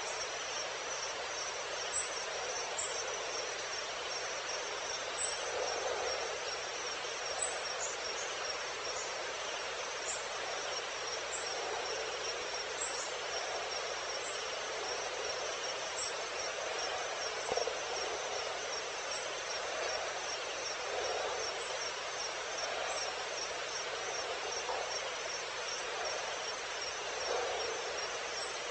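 Evening wild-habitat ambience: a steady chorus of insects with a fast pulsing high trill throughout, with scattered short high chirps and soft lower calls that come and go.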